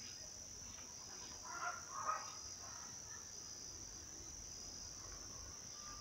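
Steady high-pitched insect chorus in the trees, with a few faint, brief sounds between about one and a half and two seconds in.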